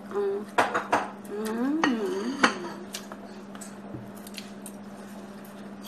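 Spoons and forks clinking against plates as people eat, a few sharp clinks in the first two and a half seconds, with a brief wordless voice sound among them. After that only a steady low hum remains.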